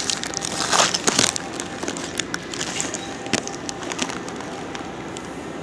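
Paper burger wrapper crinkling as a Whopper is unwrapped by hand: the loudest crackles come about a second in, followed by softer rustling and a single sharp tick past the middle.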